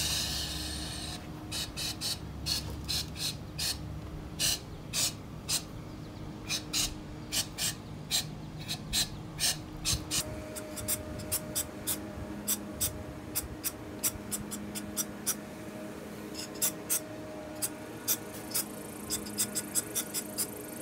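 Quick, repeated scraping strokes of hand work on metal, at an uneven rate of roughly two a second, over a faint steady hum. A short hiss comes right at the start.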